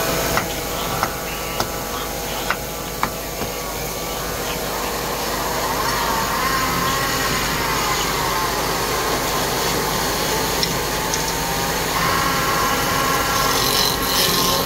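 A few sharp knocks in the first three seconds, then a hand-held chisel scraping a wooden workpiece spinning on a belt-driven wood lathe. The cut has a whining tone that rises and falls in pitch midway and turns steadier near the end.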